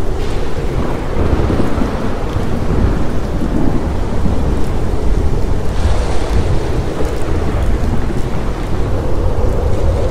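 Thunderstorm: heavy rain hissing steadily under continuous low rolling thunder, with a brief brighter rush about six seconds in.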